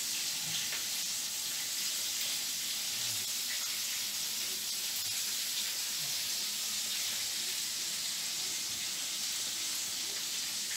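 Hot oil sizzling in a frying pan: a steady, even hiss.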